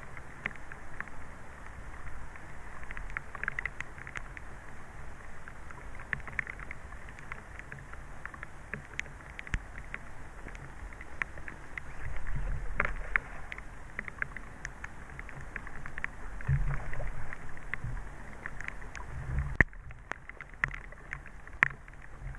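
Rain pattering close to the microphone as many scattered light taps, with a few spells of low rumbling wind buffeting the microphone.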